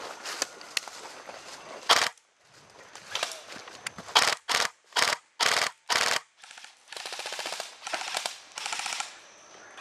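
Airsoft rifles firing bursts on full auto as a rapid string of shots. There is one burst about two seconds in, five short bursts in quick succession around the middle, and three longer bursts near the end.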